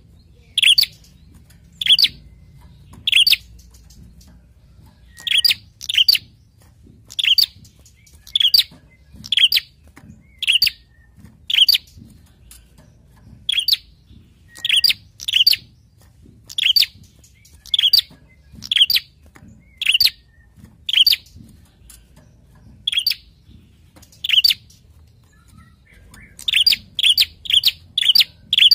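Caged prenjak (tailorbird) calling: short, sharp, high chirps repeated about once a second, often in pairs, quickening into a fast run of notes near the end.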